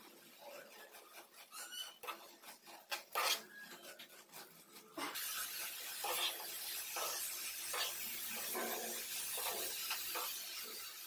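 A steel slotted spoon stirring and scraping through grated carrot halwa in a nonstick pan: repeated rasping scrapes. From about halfway a steady hiss sits under the strokes and they come more evenly.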